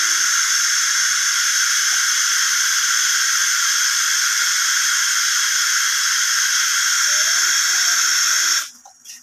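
Steady FM inter-station static hiss from the LG DM5660K mini hi-fi's tweeter, tuned with no antenna connected. It shows the amplifier is playing without shutting down into protect. The hiss cuts off suddenly near the end as a front-panel button is pressed to retune.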